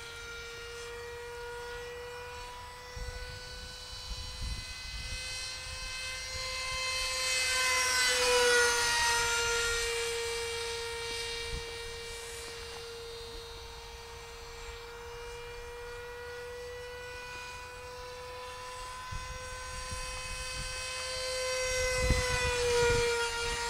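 50 mm electric ducted fan of an RC F-16 jet whining steadily in flight. It grows loudest as the jet passes about eight seconds in and again near the end, the pitch dropping slightly each time as it goes by.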